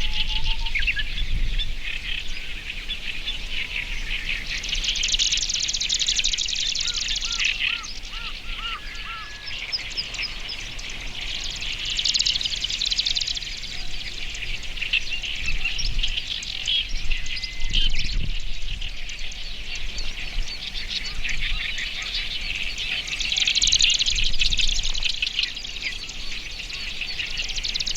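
Marsh grassbird singing in a reedbed among other warblers. A continuous chattering song runs throughout, and three louder, dense buzzy phrases come about five, twelve and twenty-four seconds in.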